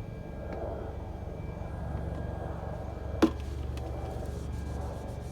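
Motor oil being poured from a bottle into a motorcycle engine's filler hole, a soft uneven pouring sound over a steady low hum. One sharp click about three seconds in.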